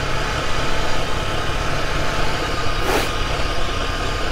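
Aprilia 125cc dirt bike's single-cylinder engine running at low road speed over gravel, heard with wind on the helmet microphone; the engine is running hot with its radiator fan on. A single short knock about three seconds in.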